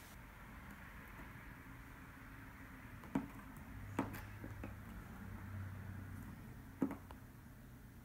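Scissors working at a tough plastic cable tie on a hard plastic toy case: three sharp clicks spread over several seconds, with quiet room tone between.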